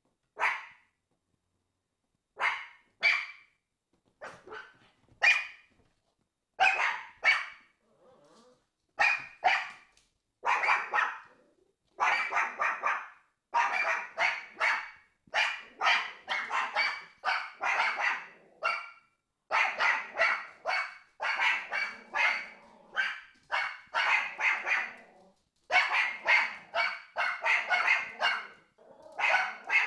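Pomeranians barking. Single barks a second or two apart at first, then rapid, almost continuous barking from about ten seconds in.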